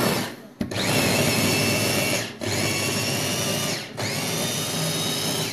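Electric food chopper running in pulses, chopping cooked green plantain into a dough. The motor whine stops briefly and starts again three times.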